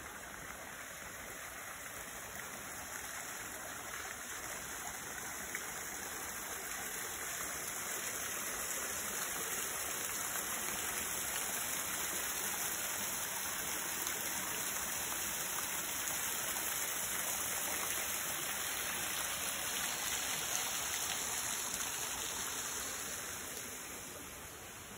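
Running water, a steady rushing that grows louder over the first ten seconds, holds, and fades again near the end.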